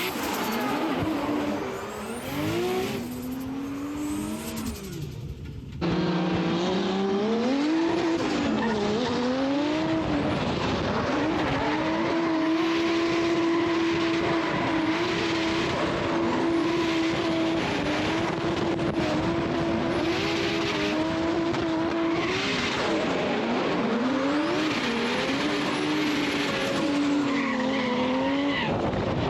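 Drift car engine revving up and down through corners, held at high revs for a long stretch in the middle, with tyres squealing and skidding. The sound gets suddenly louder about six seconds in.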